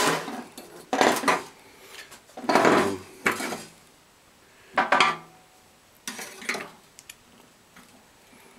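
Handling clatter as a small FASCO blower motor is lifted out of its plastic blower housing and set down on a ribbed metal tray: about five separate bursts of knocks and scrapes of metal and plastic.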